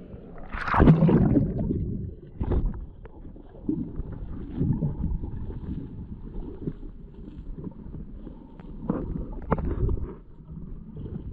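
Stream water splashing and sloshing, with one loud splash about a second in and a few sharp knocks and smaller splashes later.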